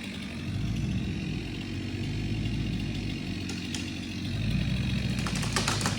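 An engine running steadily at low speed, swelling a little about half a second in and again near the end, with a few sharp clicks or knocks near the end.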